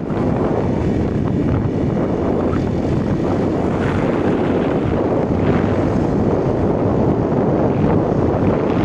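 Steady wind rush over the microphone of a phone on a moving motorbike, a dense low noise with no clear engine note.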